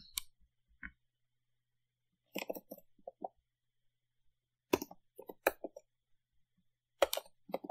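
Computer keyboard keystrokes and mouse clicks in three short flurries about two seconds apart.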